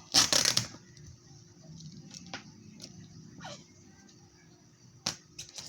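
Packaging being handled during an unboxing: a loud crackling rustle of plastic and tape just after the start, then scattered short clicks and rustles, with a sharper one near the end.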